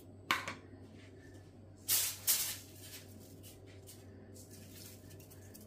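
Salt sprinkled onto thin raw potato slices in an air fryer basket: a short rattling hiss just after the start, then two more close together about two seconds in, over a faint low hum.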